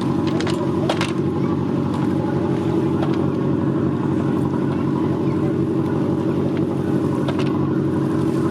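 Boat engine running steadily, a low even drone, with a few light knocks on top.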